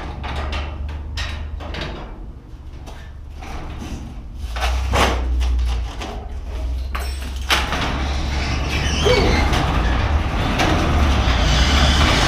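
Thin aluminum sectional garage door being lowered by hand along its tracks, its torsion spring slackened. A run of clicks and knocks for the first few seconds, then the rollers rumbling along the tracks, getting louder toward the end.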